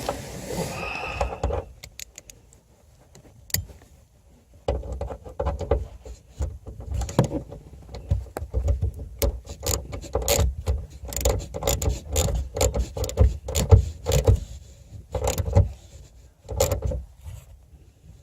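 Handling noise of installing a car speaker: irregular clicks, rattles and knocks of a screwdriver and screws against the speaker and the rear parcel shelf, in busy bursts from about five seconds in.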